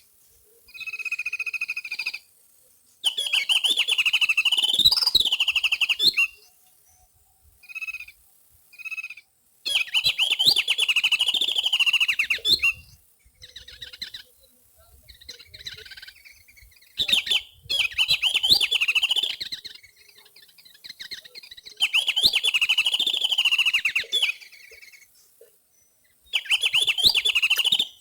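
Bird chattering calls: rapid, pulsed, high-pitched chatter repeated in bouts of about two to three seconds with short pauses between, and fainter calls in the gaps.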